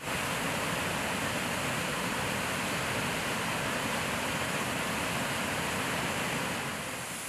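Flood-swollen waterfall pouring over rock ledges into a churning river: a steady, dense rush of falling water.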